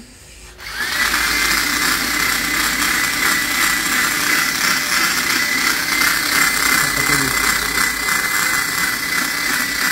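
A power tool starts about a second in, spinning up quickly to a steady high whine over a loud hiss, and runs evenly without a break.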